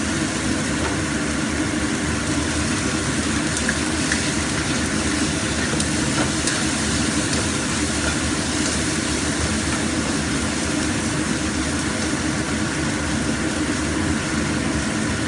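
Sliced garlic and shallots sizzling in oil in a nonstick wok over a gas burner, under a steady unchanging hum; near the end a spatula stirs them.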